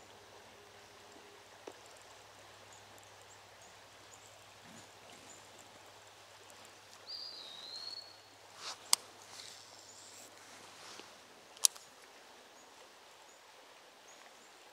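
Quiet streamside background with a faint steady hiss. About seven seconds in a single short bird chirp glides down in pitch, followed by two sharp clicks near nine and twelve seconds in.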